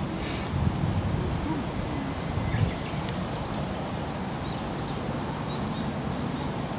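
Open-air background noise: a steady low rumble of wind on the microphone, with a few faint high bird chirps about three to five seconds in.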